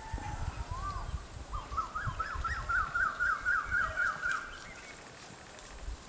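Rufous woodpecker calling: a single note about a second in, then a rapid run of about a dozen rising-and-falling notes, about five a second, that stops before the end.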